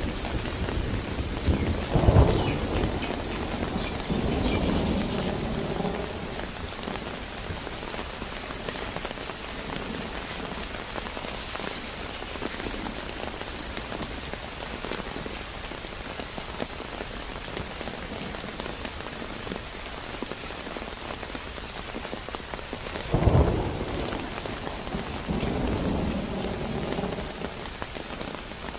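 Steady rain falling on the ground and vegetation, with two rolls of thunder: one about two seconds in and another some twenty seconds later, each starting suddenly and rumbling for a few seconds.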